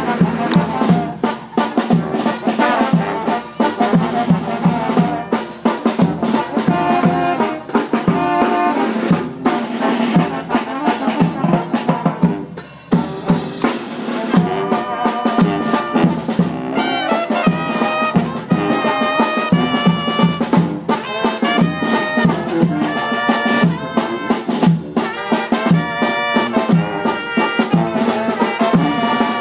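A Mexican banda (brass band) playing live, with trumpets, trombones and a drum kit keeping a steady beat. The music dips briefly about twelve seconds in, then comes back with clearer held brass notes.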